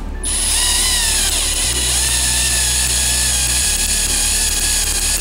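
Cordless drill boring a small hole through the sheet-metal top of a tool box. The motor's whine starts after a brief pause at the start, drops in pitch over the first second or so as the bit bites, then runs steadily.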